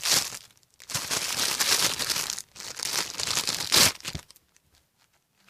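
Plastic crinkling as something is handled, in two stretches of about a second and a half each, ending in a sharper crackle a little before four seconds in.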